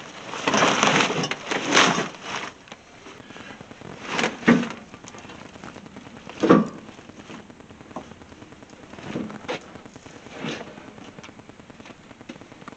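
Rustling and crackling handling noise, with a few sharp knocks standing out, two of them loudest about four and a half and six and a half seconds in.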